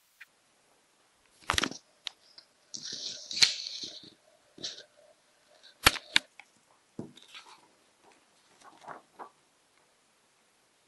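Handling noise: a few sharp knocks and a stretch of rustling as a phone and a sheet of drawing paper are moved about.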